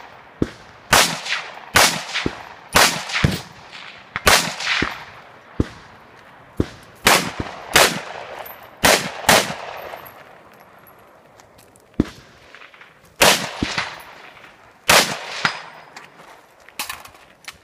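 Semi-automatic rifle fired in a stage course of fire: sharp reports with a short echo, mostly in pairs about half a second apart. About ten seconds in there is a pause of a few seconds as the shooter moves, broken by a single sharp click, before more pairs of shots.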